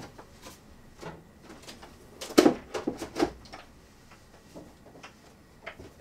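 Knocks and clatter of objects being handled and moved while someone searches for something, with a cluster of sharp knocks a little over two seconds in.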